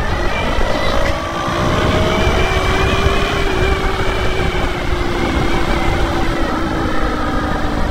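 Motorcycle running along a road, its engine under a heavy, steady rumble of wind on the microphone, with a few faint tones that drift slightly in pitch.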